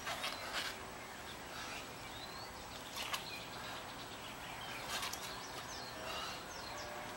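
Birds chirping in short calls over steady outdoor background noise, with a few brief sharp noises, the loudest about three and five seconds in.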